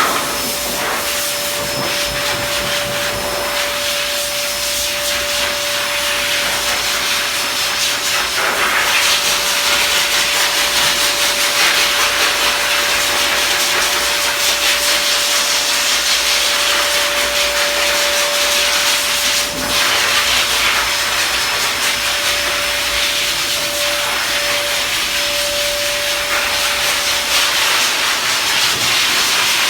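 Pet grooming dryer blowing air steadily: a loud hiss of rushing air over a steady motor whine, growing louder about eight and a half seconds in.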